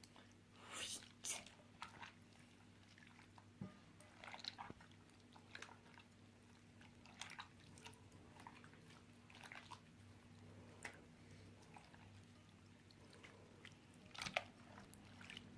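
Homemade borax slime being kneaded by hand: faint, irregular wet squelches and sticky clicks, with a couple of louder smacks about a second in and near the end.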